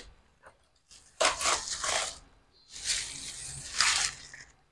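Cardboard box and plastic wrapping crinkling and scraping as a plastic-wrapped gorilla tripod is pulled out of its box, in two rustling bursts about a second apart.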